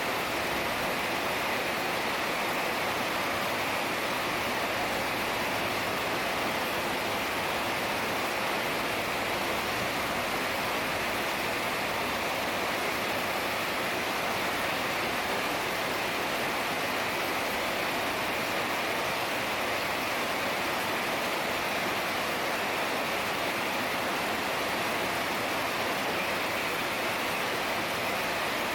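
Heavy rain falling in a steady, even downpour, with no individual drops or thunder standing out.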